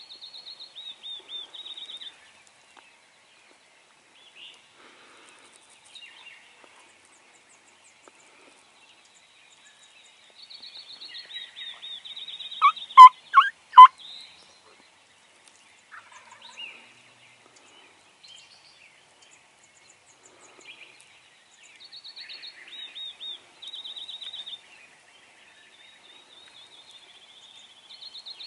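A wild turkey gobbler gobbles once, loudly, about halfway through. Around it a songbird sings several times: a run of high, quickly repeated falling notes.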